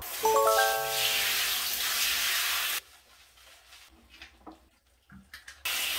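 Shower water spraying with a steady hiss. It cuts off abruptly about three seconds in and starts again just before the end. A short pitched tone sounds near the start.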